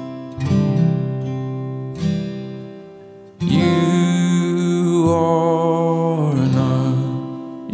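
Background music led by acoustic guitar strumming. About three and a half seconds in, it jumps to a louder, fuller passage of held notes.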